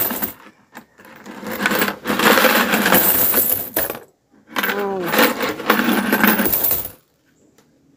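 Coins rattling inside a plastic coin bank as it is shaken upside down to empty it, in spells of shaking a couple of seconds long with short pauses between. The rattling stops about a second before the end.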